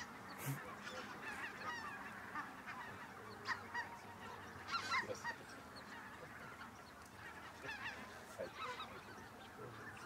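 Large flock of snow geese calling: a continuous chorus of many overlapping honks, with a few louder calls standing out about 3.5 and 5 seconds in.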